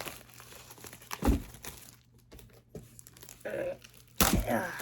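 Cardboard and plastic packaging crinkling and rustling as a trading-card box is handled and unpacked, with a single knock about a second in and louder handling near the end.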